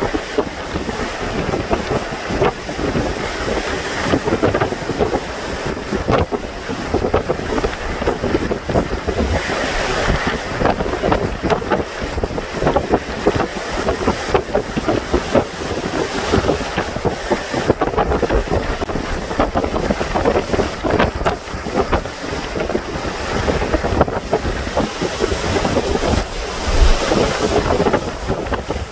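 Hurricane-force wind with wind-driven horizontal rain, howling and gusting without let-up and buffeting the microphone, with a strong gust near the end.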